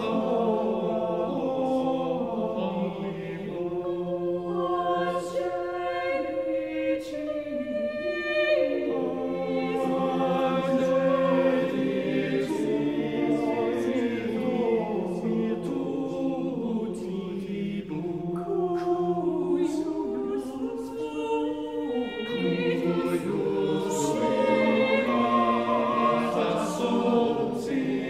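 A cappella choir singing slow, held chords in several parts.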